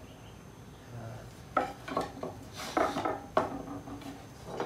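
Loose maple chair spindles clicking and knocking against one another and the wooden seat and arm as a spindle is fitted into place during a dry assembly. A quick run of about half a dozen sharp wooden knocks comes in the middle.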